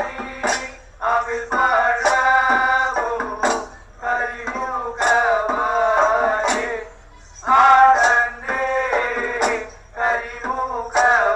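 Male voice singing a ritual temple song in short phrases with brief pauses, accompanied by sharp percussion strikes every second or so.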